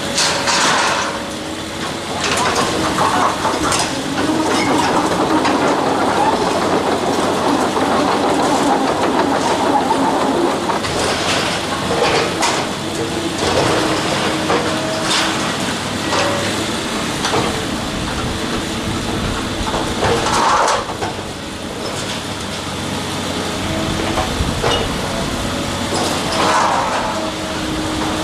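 Heavy demolition machinery working: a steady machine drone with a hum, broken by a series of sharp knocking and crunching impacts.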